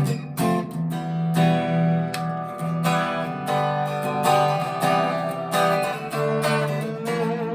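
Harley Benton TE-90 FLT electric guitar played through an amplifier on its neck pickup: a run of picked notes and strummed chords.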